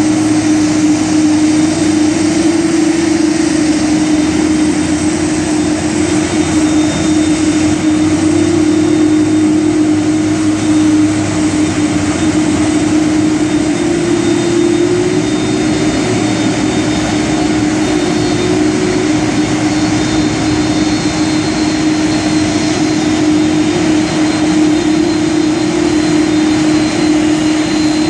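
McDonnell Douglas MD-11's three jet engines running at taxi idle: a steady loud roar with a strong, even hum beneath it.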